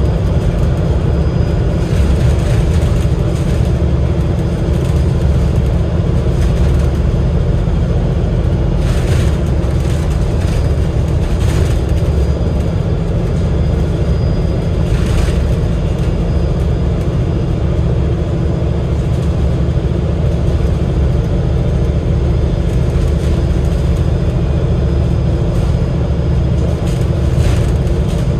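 Inside a Cummins L9-engined Alexander Dennis Enviro500 MMC double-decker bus on the move: a steady engine drone at an even pitch over a low road rumble, with a few brief noises about 9, 11 and 15 seconds in.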